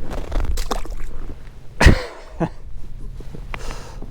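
A few short knocks and rustling handling noises, with one sharp, loud knock about two seconds in.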